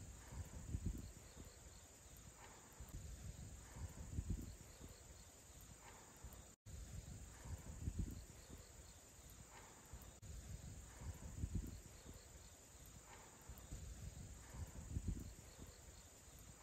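Quiet countryside ambience with a steady, high drone of insects such as crickets. Low rumbling on the microphone comes and goes every second or two.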